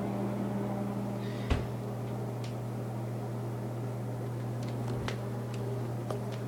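Steady low electrical hum, with a light knock about a second and a half in and a few faint clicks later.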